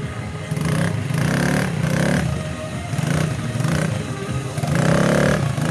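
Small ATV engine running as it is ridden, with music playing at the same time.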